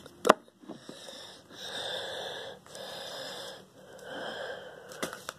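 A person breathing close to the microphone: three long, noisy breaths of about a second each, after a sharp click just after the start.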